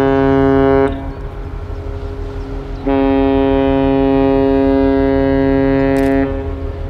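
Ship's horn of the cruise ship Astoria sounding a steady, deep note. The first blast cuts off about a second in; after a pause of about two seconds, a second long blast of about three and a half seconds follows.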